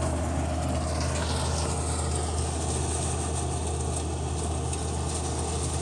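Engine of vineyard harvest machinery running at a steady, even speed, a continuous low drone.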